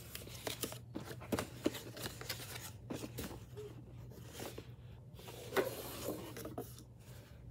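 A small cardboard shipping box being opened by hand: cardboard flaps scraping and rubbing with scattered light clicks. A louder scrape comes about five and a half seconds in as the boxed charger slides out.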